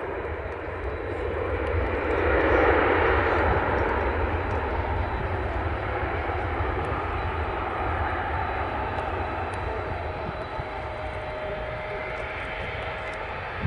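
Antonov An-124's four turbofan engines running at taxi power as the freighter taxis past: a steady jet rumble and rush with a thin high whine, loudest a few seconds in and then easing slightly.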